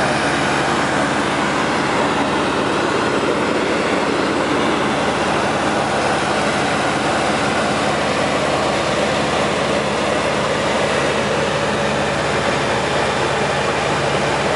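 Robin DR400 light aircraft's four-cylinder piston engine and propeller running at a steady cruise, heard inside the cockpit, with a constant rush of air noise over the airframe.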